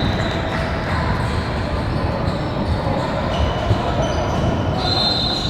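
Youth basketball game in a gym: a ball dribbling with repeated low thuds, sneakers squeaking briefly on the court a few times, and a steady murmur of crowd and player voices in a large echoing hall.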